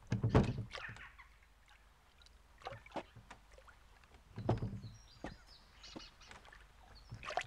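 Wooden flat-bottomed boat being poled, with scattered knocks and thuds of the pole and feet against the hull. The loudest comes just after the start, and others follow a second or two apart.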